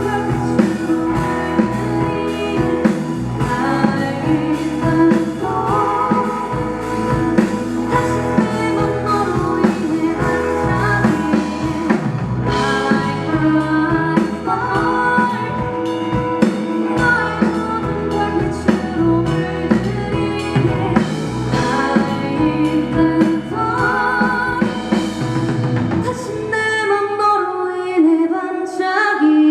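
Live rock band playing: a lead singer over electric guitar, bass, drum kit and keyboard. For about the last three seconds the drums and bass drop out, leaving the voice and higher instruments.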